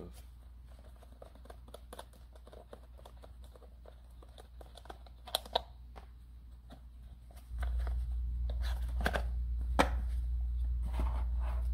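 Hands removing the mounting bolt and bracket from plastic night vision binoculars: a run of small clicks, taps and scrapes, with a couple of sharper clicks. A low steady hum comes up and gets louder about two-thirds of the way through.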